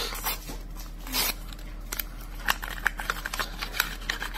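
Paper packaging handled and a small wipe sachet torn open, a rustle about a second in, then a run of short crackling ticks.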